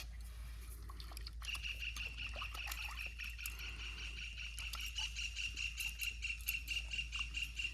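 A steady, high-pitched pulsing trill from calling pond-side animals starts about a second and a half in and keeps going, with scattered faint clicks and a low steady hum underneath.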